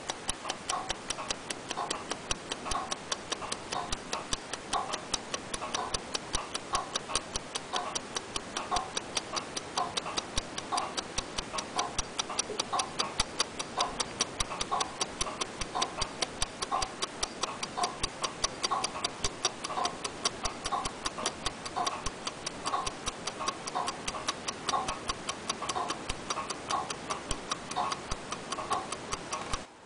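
Mechanical timepiece ticking steadily and rapidly, about five even ticks a second, cutting off abruptly at the very end.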